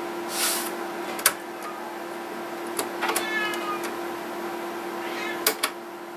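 A cat meowing once in the background about three seconds in, among several sharp clicks from the cassette recorder's keys being pressed, over a steady hum.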